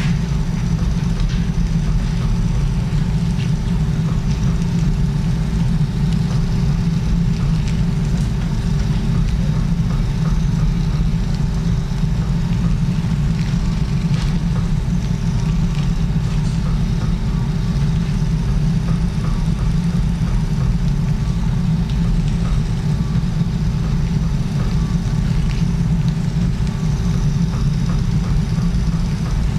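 Steady low mechanical hum of arthroscopic surgical equipment running, with a faint constant tone over it and a few scattered faint clicks.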